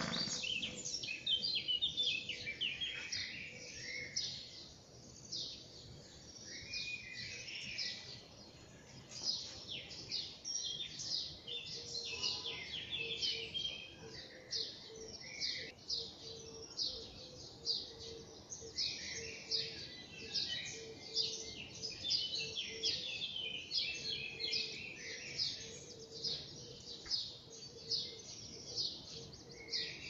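Many small birds chirping at once in a morning chorus: a dense, unbroken run of short, quick, high notes overlapping one another.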